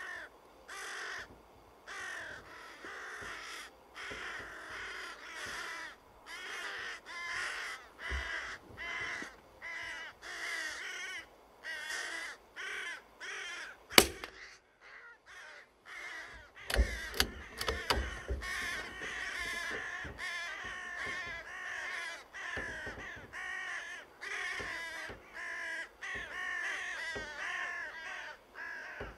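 Carrion crows cawing over and over, one short call after another. About halfway through comes a single sharp crack, the loudest sound, a .22 rimfire rifle shot, after which the cawing stops for a couple of seconds and then starts again.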